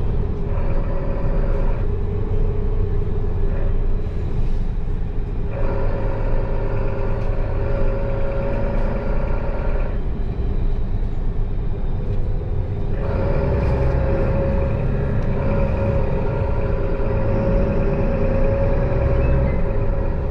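Inside a moving Mercedes-Benz city bus: steady engine and road rumble with a constant whine. The engine's higher tones drop away twice for a few seconds, then come back.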